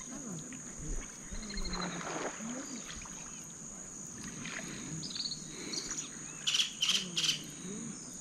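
Birds calling, with three loud sharp calls in quick succession near the end, over a steady high-pitched insect drone.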